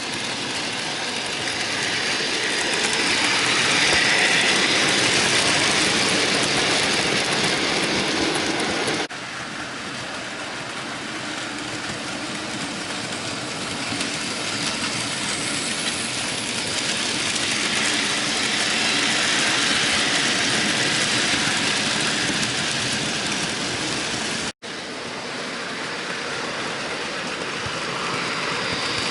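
Bachmann model train running on a layout track: a steady whirring hiss of the small electric motor and wheels on the rails, swelling as the train comes near and fading as it moves away, twice. The sound changes abruptly about nine seconds in and cuts out for an instant near the end.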